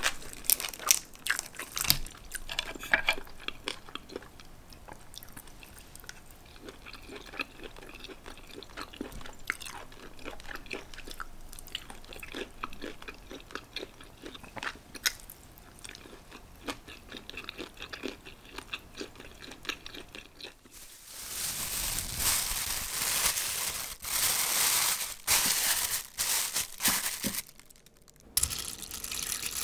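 Close-miked chewing of steamed clams and whelks, with many small clicks. About 21 seconds in it gives way to loud crinkling of a plastic bag being stretched over a bowl.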